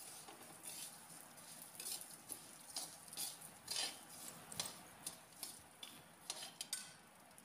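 Metal slotted spatula scraping and stirring broken wheat (dalia) in a kadhai as it roasts in ghee: a run of soft, irregular scrapes of metal on the pan through the grains.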